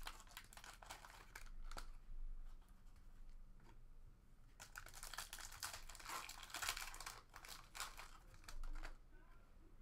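Foil wrappers of 2014 SP Authentic Golf card packs being torn open and crinkled by hand, in several bursts of rustling with quieter pauses between.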